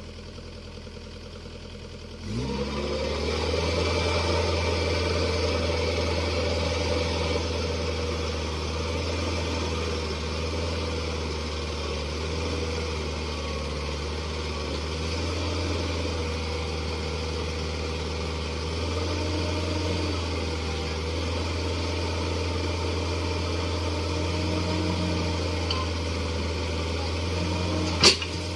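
Excavator diesel engine running. About two seconds in it throttles up from a quieter idle to a steady higher speed, then holds there, with one sharp knock near the end.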